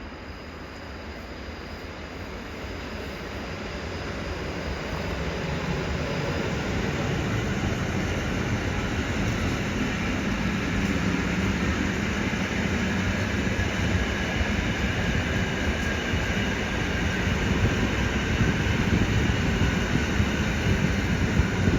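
A train approaching and running past, its rumbling noise growing louder over the first several seconds and then holding steady and loud before cutting off suddenly.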